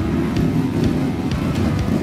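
Background music with a steady beat, about two beats a second, mixed over dirt-bike engines running.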